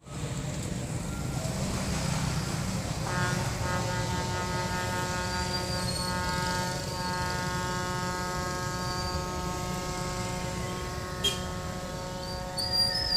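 An unexplained droning tone: several steady pitches sounding together, coming in about three seconds in and held, over a low rumble.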